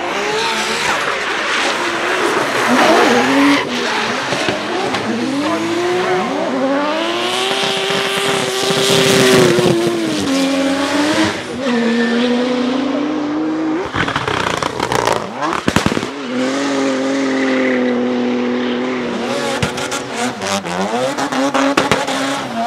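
Rotary-engined drift cars at full throttle with tyre squeal. First a Corvette C6's turbocharged three-rotor 20B, its note rising and falling as the car slides, then a Nissan Silvia S15's twin-turbo four-rotor 26B holding a high, steady note. A burst of sharp pops comes about two-thirds of the way in.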